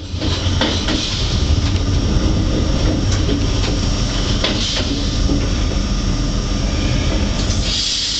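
Train running on the rails, heard from inside the carriage: a steady low rumble of wheels with a few sharp clacks, as it comes into a stop.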